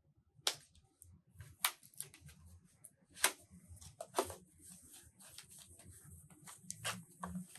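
Folded cardboard sleeve and paper cards being handled: a few sharp crinkles and snaps of the card, then a steady papery rustle as the printed cards slide out.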